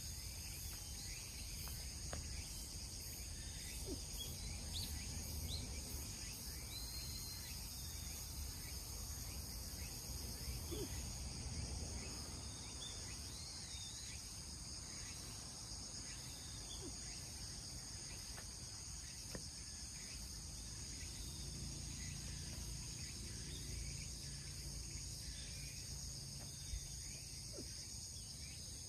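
Outdoor ambience: a steady, high, continuous chorus of insects over a low rumble, with a few short chirps.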